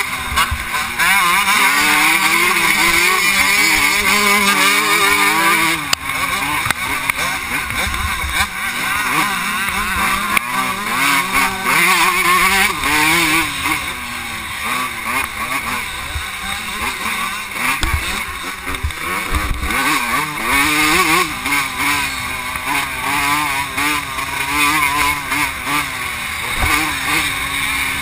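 Vintage 125 cc two-stroke motocross bike engine at racing speed, its pitch rising and falling again and again as the throttle opens and closes through the corners and straights. Heard from the rider's helmet-mounted camera.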